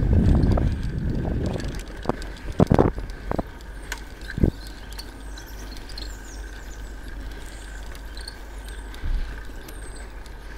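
Handling noise from a handheld camera being swung about: a low rumble that dies away over the first two seconds and a few sharp knocks, then a steady faint hiss with scattered short, high bird chirps, some falling in pitch.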